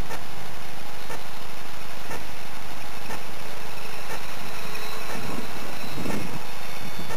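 Radio-controlled model autogyro's motor running in flight, heard through a steady hiss from a small head-mounted camera's microphone, with a few bursts of wind rumble on the microphone near the end.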